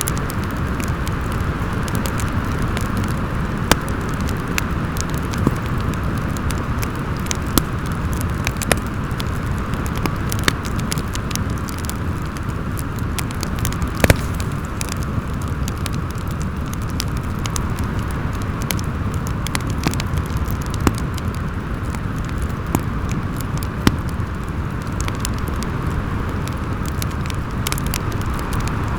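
Fireplace crackling, with scattered sharp pops, over a steady howl of storm wind.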